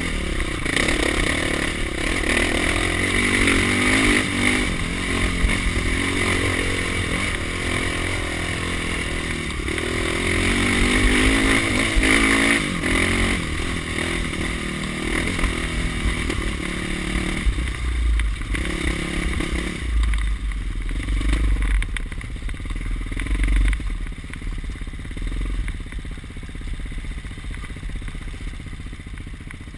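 Dirt bike engine running under the rider, its pitch rising and falling as the throttle is worked over rocky ground, with the bike rattling over loose rock. Past the halfway point the engine eases to lower revs and grows quieter.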